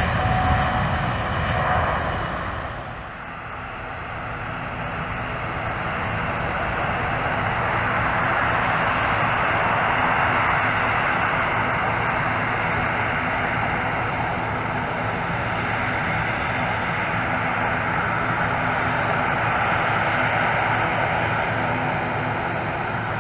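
Boeing 787-9's twin Rolls-Royce Trent 1000 turbofans at takeoff thrust: a steady jet roar as the airliner rolls down the runway and climbs away. The sound dips about three seconds in, then builds again and holds.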